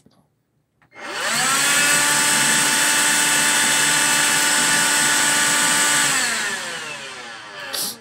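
Electrolux Rapido ZB6108 cordless hand vacuum running on its high setting. The motor spins up with a rising whine about a second in and runs steadily with a high whistle for about five seconds. It is then switched off and winds down with a falling pitch near the end.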